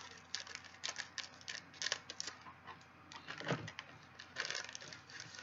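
Clear plastic wrapper of a baseball-card rack pack being cut and pulled open, crinkling in rapid, irregular crackles.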